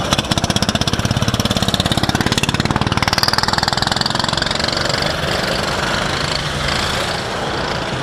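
Go-kart engines running close by: a fast, even chatter for the first three seconds or so, then a smoother engine sound whose pitch rises and falls as karts pass.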